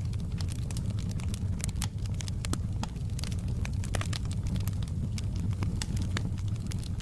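Wood fire in a fireplace burning with a steady low rumble and frequent irregular sharp crackles and pops.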